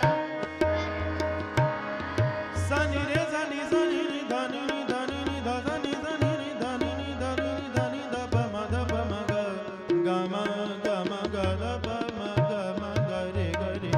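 Indian devotional music with tabla drumming under a melody that bends in pitch.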